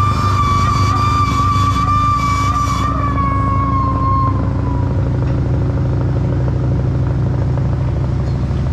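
Ford engine of a Bandit drum wood chipper running steadily, with a high whine over it that sags slightly in pitch and fades out about four seconds in, as the chipper drum spins up to speed.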